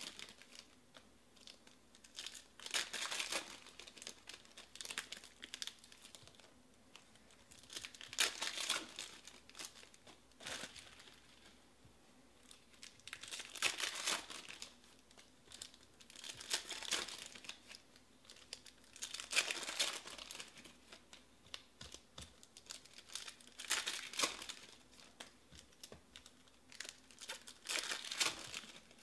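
Foil trading-card packs being torn open and crinkled by hand, in short spells of crackling every few seconds.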